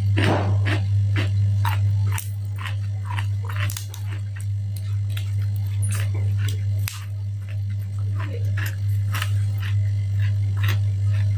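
Close-miked chewing and crunching of raw salad vegetables such as cucumber and lettuce, many short crisp crunches one after another. A steady low electrical hum runs beneath it throughout.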